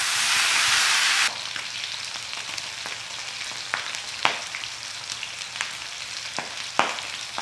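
Cubed pork belly sizzling in a wok as it sears in its own rendered fat. The sizzle is loud at first, drops suddenly about a second in, then keeps up as a softer, steady sizzle with occasional sharp pops. The sound is that of the fat being rendered out while the pork browns.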